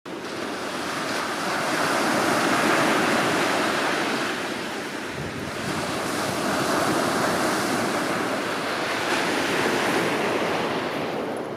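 Sea surf washing onto a beach: a continuous rushing hiss that swells, eases about five seconds in, and swells again.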